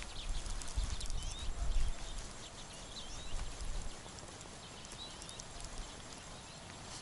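Light clicks and handling noise from a small ice-fishing rod reel as line is wound by hand, with a low rumble in the first two seconds and a few faint high chirps.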